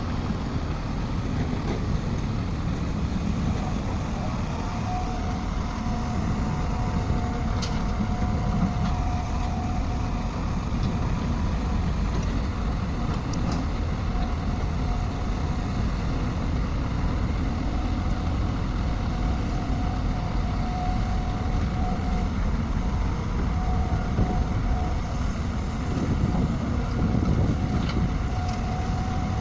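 Heavy earthmoving machine's diesel engine running steadily, with a high steady whine that comes and goes for a few seconds at a time.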